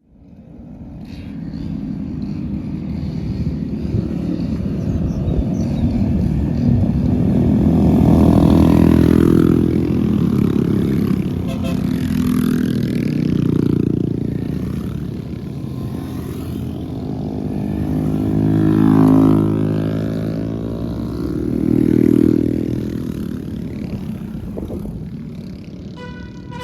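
Small single-cylinder 125 cc motorcycles (Honda Monkeys and Groms) running, their engine note swelling louder four times as they rev or ride past.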